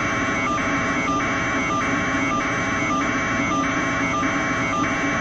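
An electronic alarm beeping in a steady rhythm, about three beeps every two seconds, over a continuous rushing noise.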